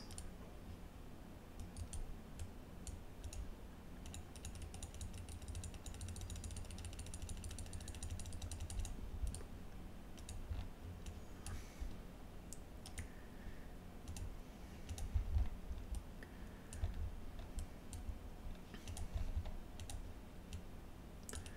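Computer mouse clicking at an irregular pace, single clicks scattered through, over a low rumble from the desk.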